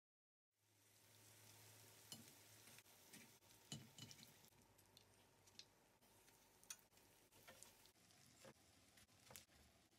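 Spring rolls sizzling faintly in shallow oil in a frying pan, with scattered clicks and taps of wooden tongs and chopsticks turning them.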